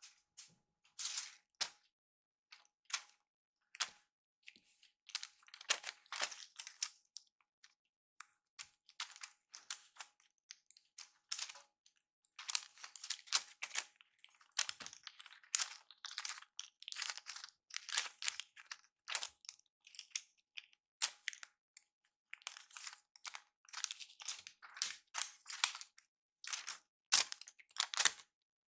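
A kitten batting, pinning and biting a cat teaser toy: irregular bursts of short crinkles, rustles and clicks as the toy's plastic attachment is pawed and dragged across the wooden floor.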